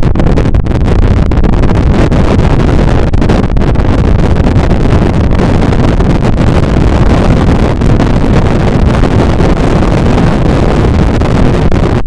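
Wind buffeting the microphone on a moving cruise boat: a loud, steady rush of noise, heaviest in the low end.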